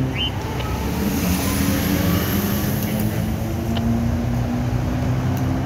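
Freeway traffic passing close by on the bridge: a steady roar of tyres with the hum of car and truck engines.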